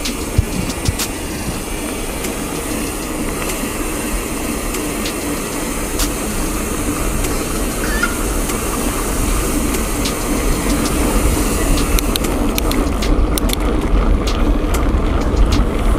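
Mountain bike rolling fast on asphalt: wind rushing over the microphone and tyres rumbling on the road, slowly growing louder as speed builds. Scattered light clicks and rattles from the bike.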